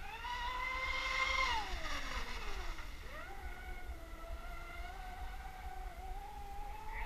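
Electric RC powerboat with a Neu 2230 brushless motor whining as it runs across the water on a gentle low-speed test run. The whine holds steady, drops in pitch about a second and a half in, then picks up again and rises slowly.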